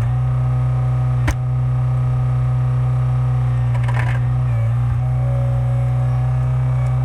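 Skid steer engine running steadily at constant speed, powering the log splitter's hydraulics, with a sharp knock a little over a second in and a brief dip in the engine note about four and a half seconds in.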